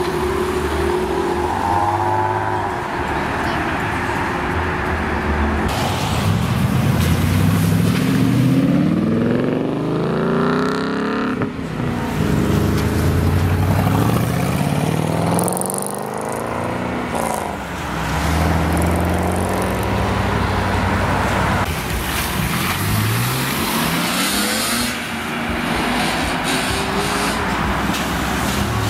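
Several cars accelerate away past the roadside one after another, with tyre and road noise in between. Each engine note climbs in pitch, then drops back at a gear change and climbs again. A Maserati Quattroporte sedan passes as it opens, and a BMW M3 convertible pulls away near the end.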